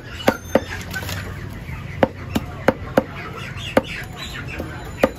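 Large knife striking a wooden chopping stump as live climbing perch (koi) are cut: about nine sharp knocks, unevenly spaced.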